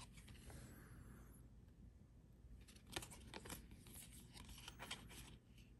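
Faint handling of baseball trading cards: quiet sliding, then a few light clicks and flicks about three seconds in as the cards are leafed through by hand.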